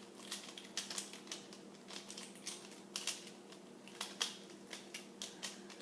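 Plastic Pyraminx puzzle being twisted quickly to scramble it: a quick, irregular run of clicks as the layers and tips turn.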